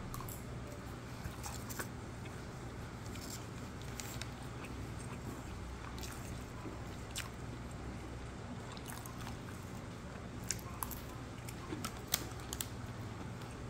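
A person chewing a mouthful of grilled chicken leg bento, with scattered short sharp clicks and crunches at irregular intervals over a steady low hum.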